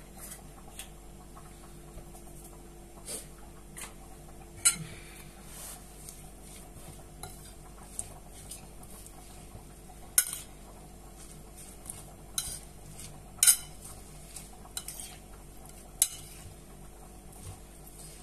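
Metal cutlery tossing a chopped vegetable salad in a ceramic bowl: irregular clinks and scrapes of metal against the bowl, a few sharper than the rest, over a faint steady hum.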